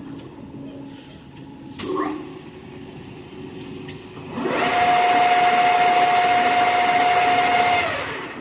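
1K62 screw-cutting lathe running on test after a major overhaul. A short sound about two seconds in, then the lathe's spindle gearbox runs up about halfway through and runs loudly at a steady speed with a high gear whine for about three and a half seconds before winding down near the end.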